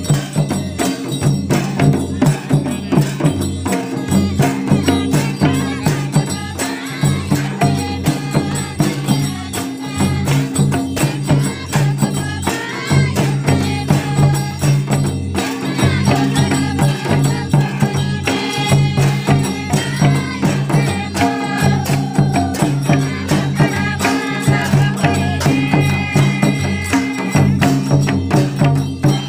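Santali folk dance music: a madal barrel drum and kettle drums beaten in a fast, steady rhythm, with group singing over the drumming in places.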